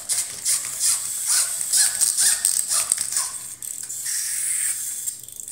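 Small clockwork toy motors clicking and whirring rapidly as a wind-up pirate ship toy is wound by hand and a pull-back bug toy is worked along its track.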